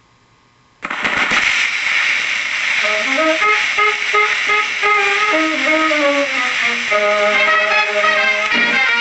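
A 78 rpm shellac record of swing big-band music playing on a phonograph, starting suddenly about a second in with brass and saxophone lines over a steady surface hiss. Before it starts there is only a faint low hum.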